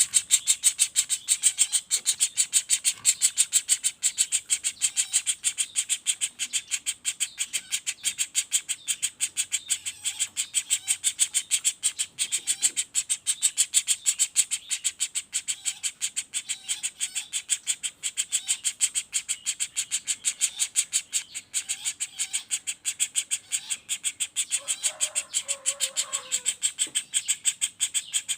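Young woodpecker (pelatuk bawang) calling in a fast, unbroken rattle of short high notes, about seven a second.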